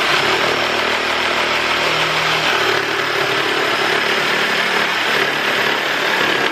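Jigsaw sawing through a wooden board, a steady cutting noise that starts abruptly and holds level.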